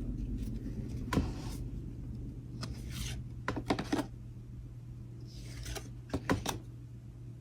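Trading cards being handled and flipped through: soft sliding rustles with a few light taps and clicks, over a low steady hum.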